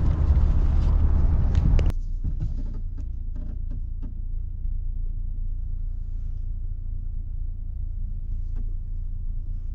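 Vehicle running: a loud steady road and engine noise that drops abruptly about two seconds in to a quieter, steady low rumble with a few faint clicks.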